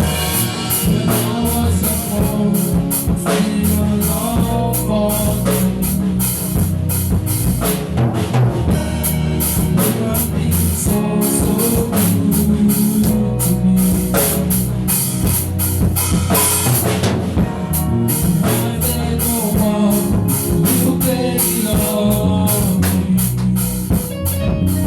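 Loud music with a drum kit and bass drum keeping a steady beat, and a voice singing at times.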